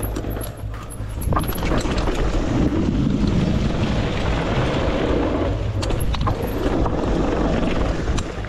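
Cube Two15 downhill mountain bike rolling fast over a wooden plank boardwalk: the tyres drum and rattle over the slats with a dense run of small clicks, and wind rushes on the microphone. It gets louder about a second in as the wheels reach the boards and eases a little near the end as the bike comes back onto dirt.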